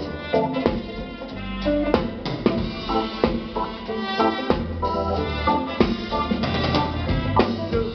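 Live band playing an instrumental passage, the drum kit to the fore with kick, snare and rimshot strikes, over double bass, electric guitar and keyboard.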